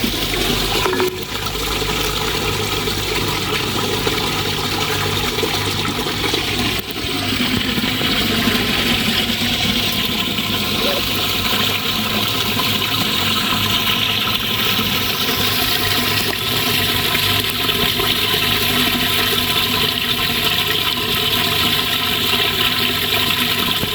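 Water running steadily at a natural spring well, a continuous splashing rush.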